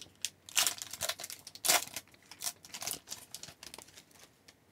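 Hockey card pack wrapper crinkling and tearing as a pack is opened, in irregular rustling bursts, loudest about two seconds in, that die away near the end.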